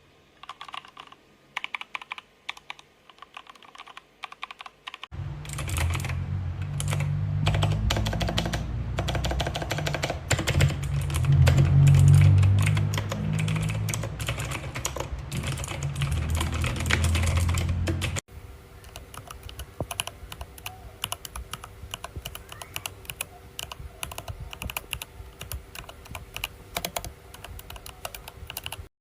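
Rapid typing on an AJAZZ AK680 68-key mechanical keyboard, many quick keystroke clicks, sparse at first and then fast. From about five seconds to eighteen seconds in, a loud low rumble sits under the typing.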